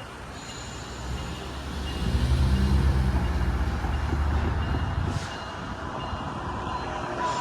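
Railroad crossing warning bell ringing with a quick, repeating high tone as the crossing activates. A low engine rumble swells about two seconds in and fades about five seconds in.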